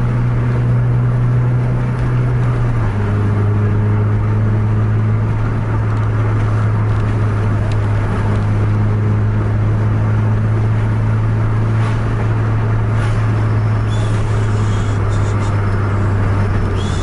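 Car cabin noise at highway speed: a steady low engine drone over tyre and road rush. The drone drops slightly in pitch about three seconds in.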